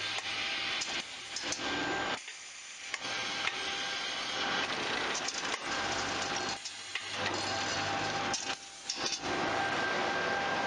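Bag packing and palletizing machinery running: a steady mechanical rush with a low hum and a faint steady whine, briefly dropping off three times as the machine cycles.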